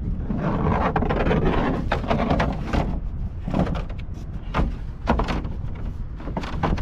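Irregular knocks, clatter and scraping over a rushing noise: handling work on the rooftop air conditioner, such as its shroud being set back in place.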